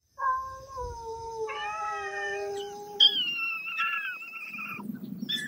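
Cats yowling: long, drawn-out calls that slowly fall in pitch, two voices overlapping, with a higher-pitched call starting about three seconds in.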